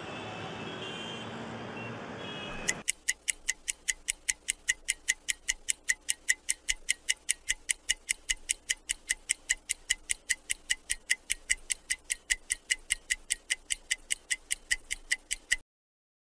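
Clock ticking fast and evenly, about four ticks a second, beginning about three seconds in and cutting off abruptly near the end.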